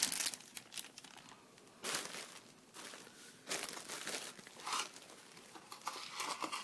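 Packaging wrap crinkling and rustling in several short bursts as it is handled.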